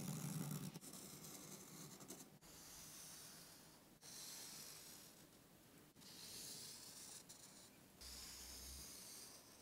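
Felt-tip marker drawn along a ruler on a resist sheet: a faint, scratchy hiss in several long strokes of about two seconds each. A soft, lower rubbing sound comes first.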